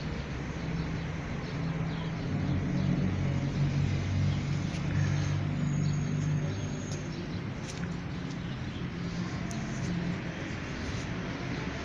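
Low, wavering motor-vehicle rumble in the background, with a few faint high ticks.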